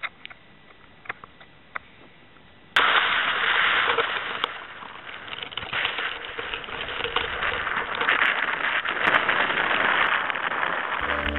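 Strong wind buffeting the microphone: a loud, rough rushing full of crackles that starts suddenly about three seconds in, after a quiet stretch with a few scattered clicks.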